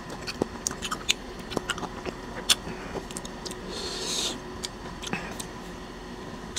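Close-miked eating sounds: scattered light clicks of wooden chopsticks against a small plastic dipping bowl, with faint chewing and a brief wet swish about four seconds in as food is stirred in the sauce.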